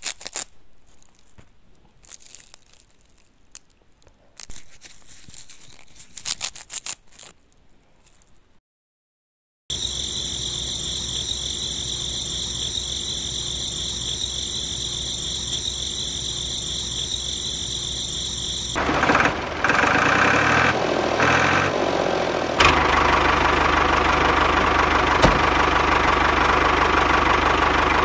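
Crackling and rustling of fresh green grass stalks being handled, a short silence, then a steady hum with a high whine. About two-thirds of the way in, a louder steady engine-like running of the miniature tractor begins, growing louder again a little later.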